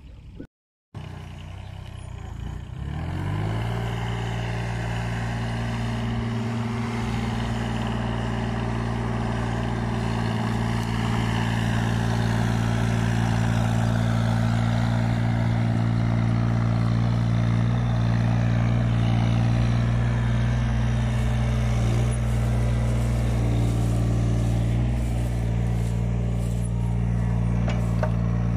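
Yanmar ViO mini excavator's diesel engine running at a steady speed, coming in about two to three seconds in and holding an even, loud drone.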